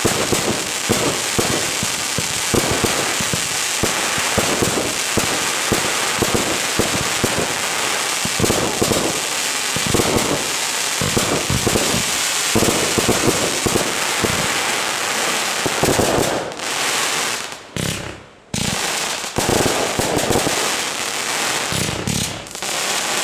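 Fireworks display: a dense, continuous barrage of crackling and bangs from shells and effects, with a brief lull about eighteen seconds in before the bangs resume.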